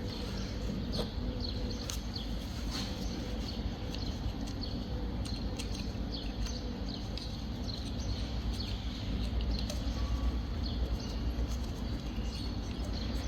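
Birds chirping in short repeated calls over a low steady background hum, with a few light clicks.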